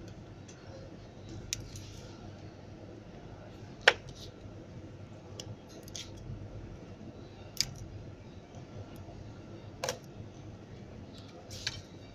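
Five sharp plastic clicks and snaps from a Lenovo A6020 (K5) smartphone's back housing and frame as it is handled and pried apart by hand, the loudest about four seconds in.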